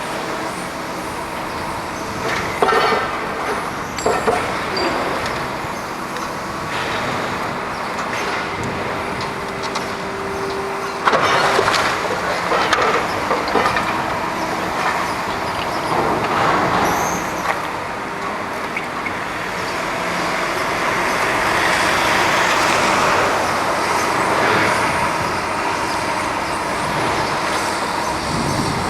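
Heavy demolition machinery: a diesel engine running steadily, with repeated sudden knocks and crashes of debris.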